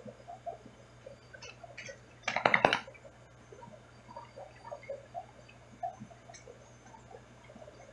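Aquarium ambience: a low steady hum with faint scattered drips and ticks. A short burst of clattering clicks comes about two and a half seconds in.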